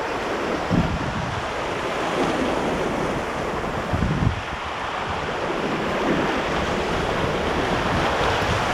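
Whitewater rapids rushing steadily, with wind buffeting the microphone in a few short low thuds.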